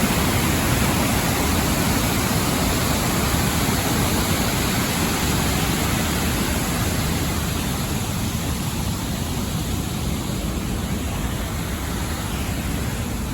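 Steady rushing noise of a large waterfall, the water of Sogi Falls crashing over its broad rock ledges. It cuts in suddenly and stays at an even level.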